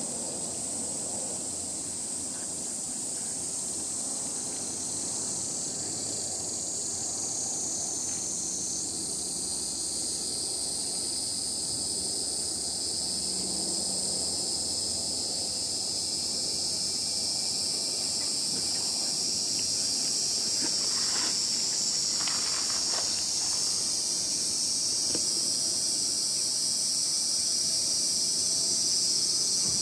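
Steady high-pitched chorus of summer insects, growing gradually louder toward the end, with a few faint short sounds about two-thirds of the way through.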